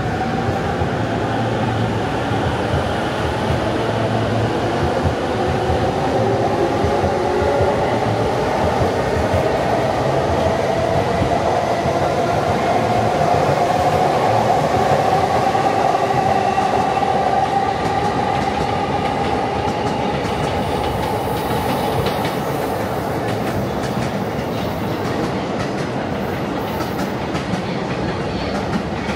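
Electric commuter train running along the platform, its motor whine climbing steadily in pitch as it gathers speed and then levelling off, over the clatter of the wheels on the rails.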